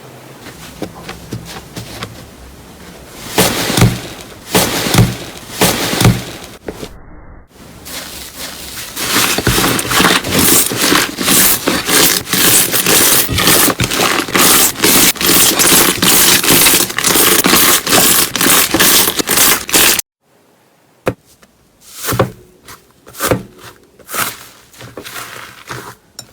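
Slime being pressed and squeezed by hand: a few sharp squishes and pops, then a long dense run of rapid crackling and clicking, then more scattered pops after an abrupt cut.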